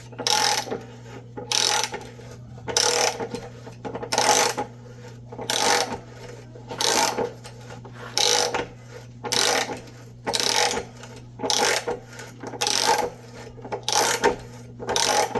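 A 3/8-inch-drive socket ratchet clicking in short bursts, about one every second and a quarter, as it works a 3/4-inch NPT tap around in a water heater's anode port. The tap is cutting and cleaning up the cross-threaded threads.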